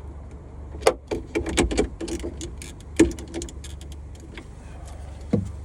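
Hand tools clinking and knocking on metal parts during work on a car's battery fuse: a handful of separate sharp strikes, the loudest about three seconds in.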